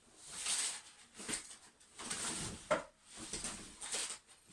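Rustling and handling of bags and gear being rummaged through in a search for a missing item, in irregular bursts, with a sharp click a little under three seconds in.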